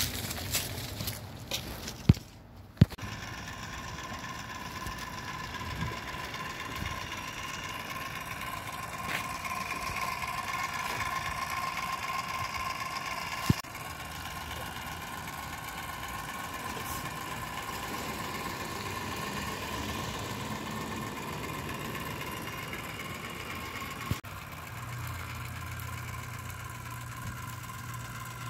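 Cordless Ryobi caulking gun running, its motor whining steadily as it pushes a bead of windshield urethane; the whine breaks off sharply about 13 seconds in and again near 24 seconds, followed by a lower hum. A few sharp knocks come in the first few seconds.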